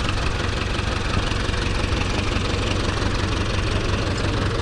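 Ursus C-360 tractor's turbocharged four-cylinder diesel idling steadily.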